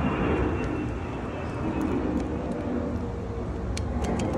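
A steady low outdoor rumble, with a few short plastic clicks near the end as a wiper blade's plastic connector is worked onto the windshield wiper arm.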